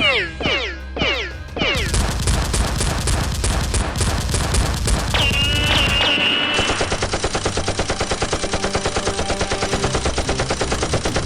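Gunfire sound effects of a mock battle: a few quick falling-pitch zaps, then dense rapid automatic fire, a brief high whine about five seconds in, and from halfway on a fast, very even machine-gun rattle.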